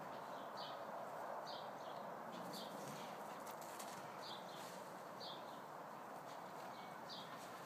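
A small bird giving short, high chirps, about one a second, faint over a steady background hiss of outdoor ambience.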